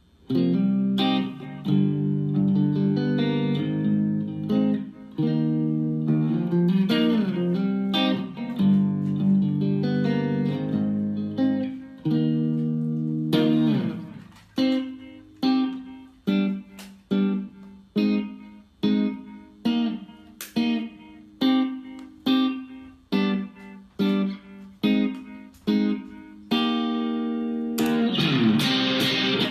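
Instrumental guitar music. Held, ringing chords for the first half, then short plucked chords at about one and a half a second, and fuller continuous playing near the end.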